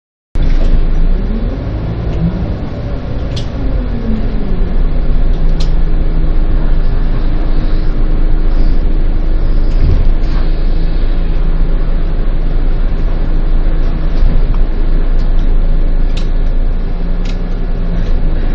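Bus engine running with road rumble. Its pitch rises and then falls over the first few seconds, and the sound then settles into a steady drone. Occasional short clicks and rattles sound through it.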